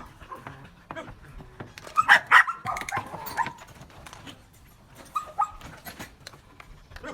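Belgian Malinois puppy barking in a high voice: two sharp barks about two seconds in, trailing into a few shorter yips, then two more short barks a little after five seconds.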